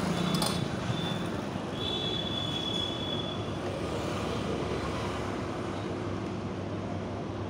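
Steady street traffic and engine noise, with a thin high squeal lasting about two seconds shortly after the start.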